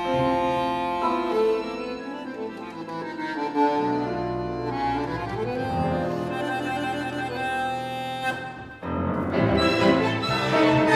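Bandoneon playing a slow melody of long held notes over chords. After a brief break near the end, the string orchestra comes in with a fuller, louder passage.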